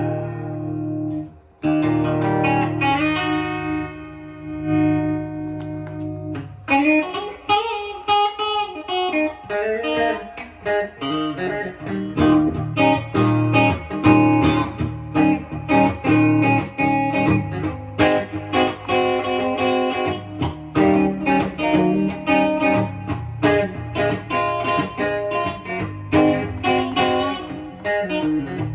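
Fender Vintera '50s Telecaster electric guitar being played: chords let ring for the first few seconds, then steady picked notes and chords from about seven seconds in.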